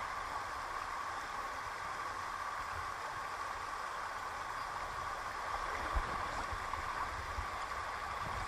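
Shallow, fast river rushing steadily over stones, with a low rumble underneath and a couple of brief low bumps past the middle.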